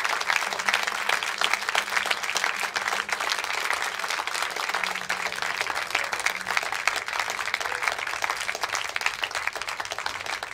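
Audience applauding steadily as a mass of quick claps, tapering slightly near the end.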